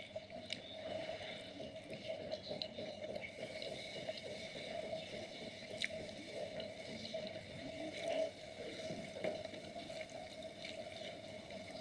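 Wet, squishy chewing and mouth sounds of someone eating, with many small irregular clicks over a steady background hum.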